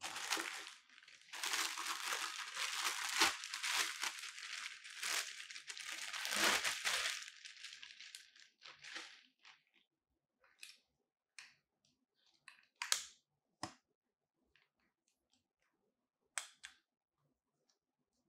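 Plastic packaging crinkling and rustling for about eight seconds as a light stand is taken out of its wrapping. Then come scattered clicks and knocks of the metal tripod stand's legs being handled and unfolded.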